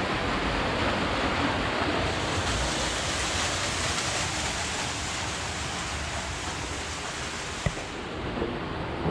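Steady rush of falling water, as from a waterfall, growing brighter and hissier for most of the stretch, with one short click near the end.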